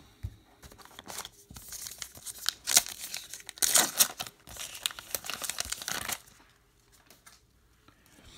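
Wrapper of a 2019 Topps Gypsy Queen baseball card pack being torn open by hand: a run of crinkling, crackling rips lasting about four seconds, loudest around the middle.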